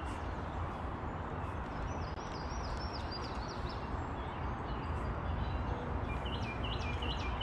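Steady rushing outdoor background noise, with a songbird singing a run of quick repeated chirps about two seconds in and again near the end.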